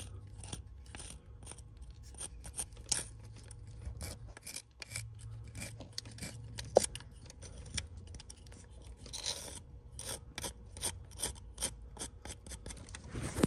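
A thin metal hand tool scraping at oily black deposits inside an engine cylinder head's port, in quick, irregular scratchy strokes of about two or three a second, with one longer scrape a little past the middle.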